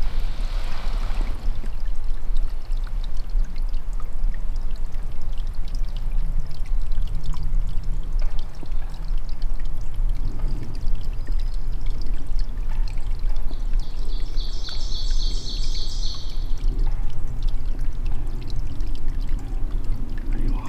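Steady rushing noise, mostly deep and rumbling. About fourteen seconds in, a rapid high trill lasts about two seconds.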